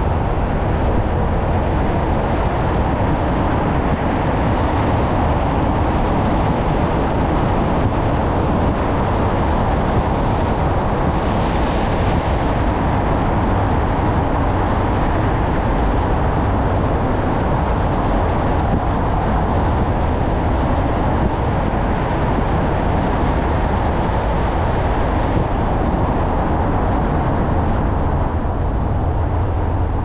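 Steady road noise of a car driving through a road tunnel: tyres on the road and the engine making a continuous low rumble. There is a brighter hiss for a moment around eleven seconds in.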